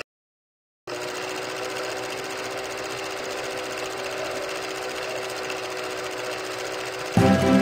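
Film projector sound effect: a steady, rapid mechanical clatter with a hum, starting about a second in. Music comes in, louder, just before the end.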